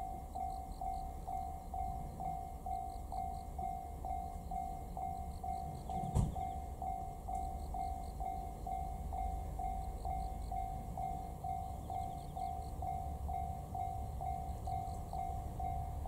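Japanese level-crossing warning bell ringing its steady electronic ding, about two and a half strokes a second, over a low rumble. A single sharp knock sounds about six seconds in.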